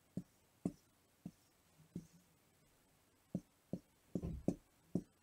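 Whiteboard marker drawing on a whiteboard on an easel: faint, irregular short taps and strokes, with a busier run of scribbling about four seconds in.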